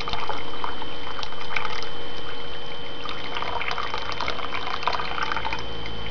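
Cold water poured in a thin stream from a glass jar into hot water in an electric kettle, splashing and trickling steadily.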